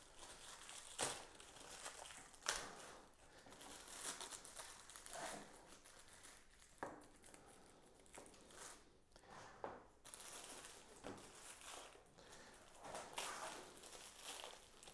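Faint crinkling and tearing of plastic packaging wrap being pulled off a new bike's handlebar, in irregular crackles.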